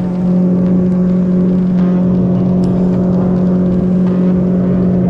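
Boat engine running at a steady speed, a constant drone with an unchanging pitch.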